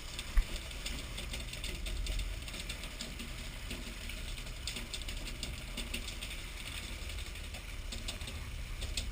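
Fishing boat's engine droning low, with irregular rapid clicking and rattling over it and one sharp knock about half a second in.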